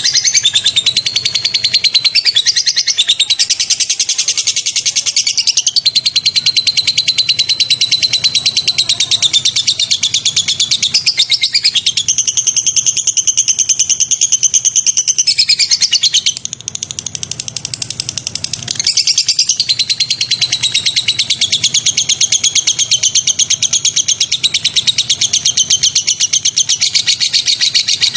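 A bird singing a continuous, very rapid, high-pitched trill of repeated notes, softer for a few seconds about two-thirds of the way through.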